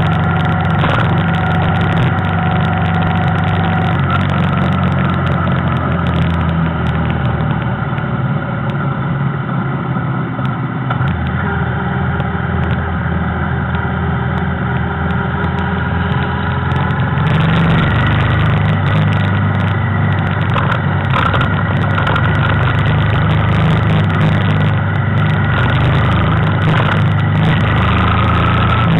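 Motorcycle engine running steadily while riding, heard from on the bike, getting a little louder a bit past halfway through.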